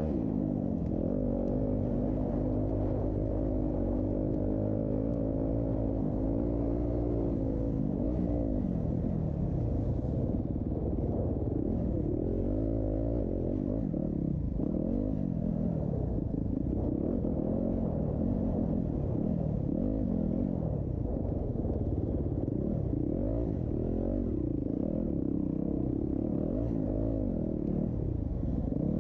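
Dirt bike engines revving, their pitch climbing and dropping again and again as the throttle is worked, with more than one bike running at once.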